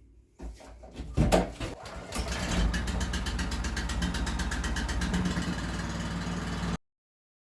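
Small gasoline engine on a pressure washer being cranked with the choke on. It catches about two seconds in and settles into a steady run, until the sound cuts off suddenly near the end.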